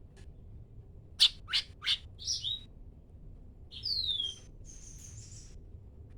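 Cucak ranting songbird singing: three sharp, quick down-sweeping whistles about a second in, a short two-part note, then a slurred falling whistle followed by a harsh buzzy note.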